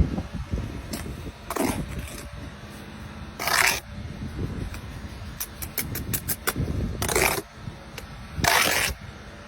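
Steel trowel scraping mortar in four short strokes, with a quick run of light clicks between them.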